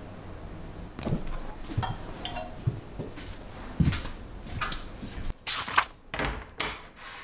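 Household handling sounds: a few soft knocks and thuds, then several short swishes near the end.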